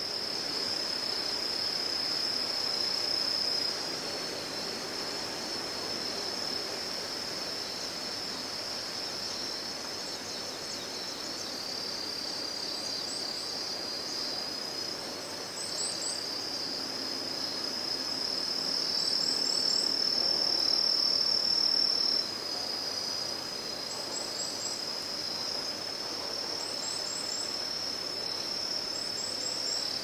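Insects trilling in a steady high chorus, with short high chirps in groups of three repeating every couple of seconds through the second half.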